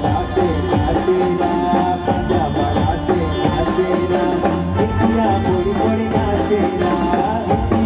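Live garba folk music played by a band: a steady percussion beat with a melody line over it.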